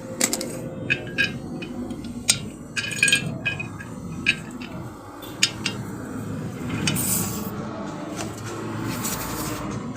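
Metal parts of a gas stove burner clinking and scraping as they are handled. There is a run of sharp clinks in the first half and two brief rasping scrapes later, over a steady low background rumble.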